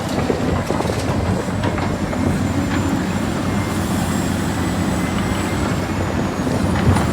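Steady mechanical rumbling noise with a faint high whine.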